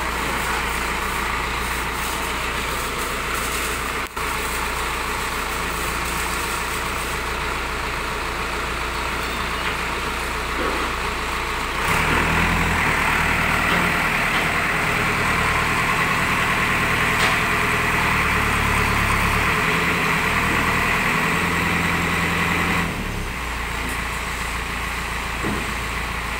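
Diesel engine of an old JCB 3D backhoe loader idling steadily. About halfway through it picks up and runs faster and louder for some ten seconds, then drops back to idle near the end.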